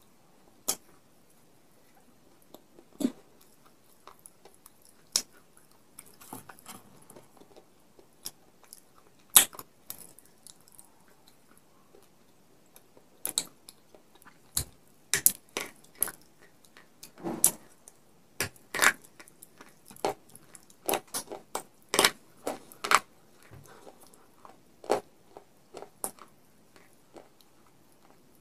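Close-miked crunching of brittle baked clay being bitten and chewed, heard as scattered sharp crackles and clicks. They are sparse at first and come in quick clusters through the second half.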